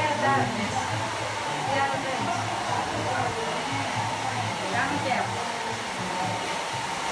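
Hair dryer running steadily with a continuous whooshing of air, the usual background of a working hair salon.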